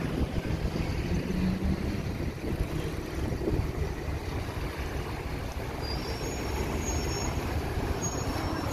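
Strong wind buffeting the microphone: a steady, uneven low rumble with no distinct events.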